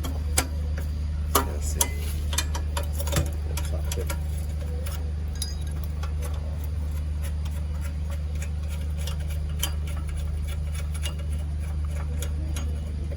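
Metal tool tapping on a tight fastener of a generator's engine mounting: a handful of sharp metallic taps in the first few seconds, then lighter scattered clinks. A steady low hum runs underneath.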